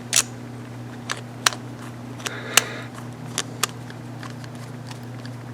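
Sharp light clicks and taps of a screwdriver and small metal carburetor parts being handled while the main jet is refitted, about seven in the first four seconds, over a steady low hum.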